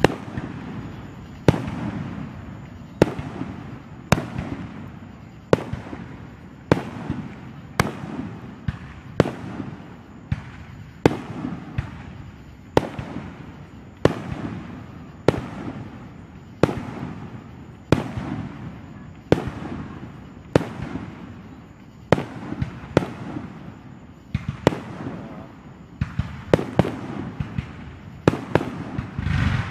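Aerial firework shells bursting one after another, a sharp bang about every second or so, each trailing off in a low rumble. Near the end the bangs come closer together.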